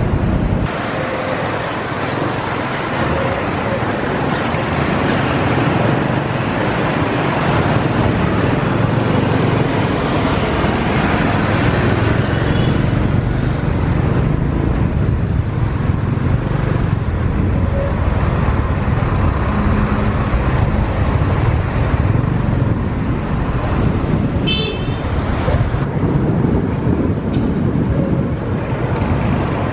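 Steady road and traffic noise heard riding on the back of a motorbike taxi through city streets, with the bike's engine and surrounding cars and scooters. A short horn beep sounds once, late on.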